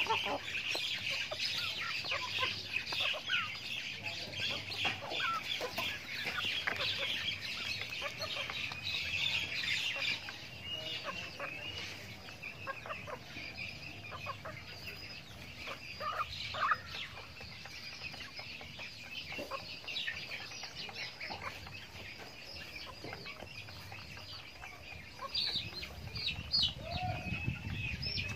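A flock of young chickens clucking and peeping as they feed at a bamboo trough, with scattered taps of beaks pecking. The calls are busiest for the first ten seconds or so, then thin out.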